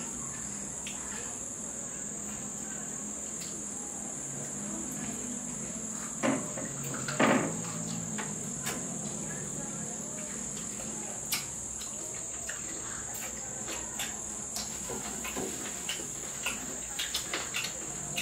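Crickets chirping in a steady, unbroken high-pitched chorus, with scattered short clicks and smacks of eating; the loudest of these come about six and seven seconds in.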